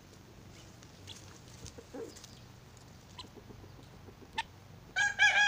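A few faint rustles and clicks, then near the end a rooster starts to crow: one long, steady, loud call.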